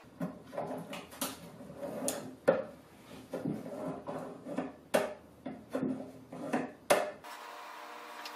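Metal ball-bearing drawer slide, freshly screwed to a wooden panel, being pulled out and pushed back: rattling, sliding runs with sharp metallic clacks as it hits the ends of its travel, three of them loudest. It stops suddenly about seven seconds in, leaving a steady low hum.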